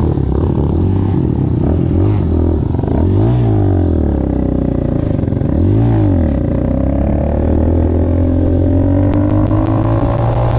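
Small dirt bike engine, revved in two short blips about three and six seconds in, then pulling away with its pitch climbing steadily as it accelerates.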